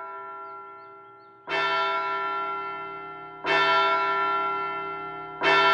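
A large bell tolling slowly, with a strike about every two seconds, three in all, each a little louder than the last and ringing on until the next.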